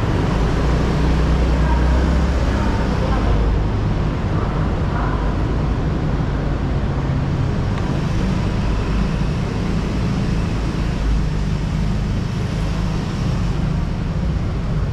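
Yamaha Gravis 125 cc single-cylinder scooter engine running steadily at low speed, heard from on board with a constant rush of road and wind noise.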